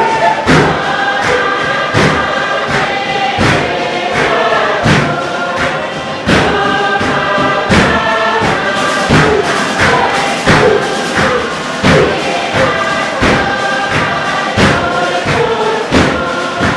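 Tuvaluan fatele: a large group singing together in harmony over a steady beat struck on a wooden box drum, about three beats every two seconds.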